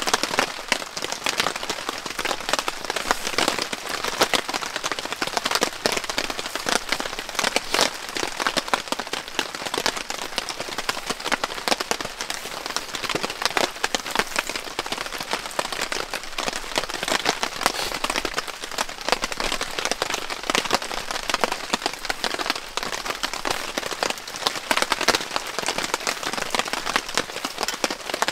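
Heavy rain falling steadily, a dense, even stream of drops striking a surface.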